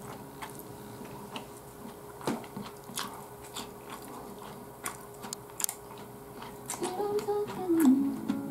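Close-up eating sounds: a man chewing a mouthful of rice, with scattered sharp clicks of chopsticks on a ceramic rice bowl. About seven seconds in, background guitar music comes in.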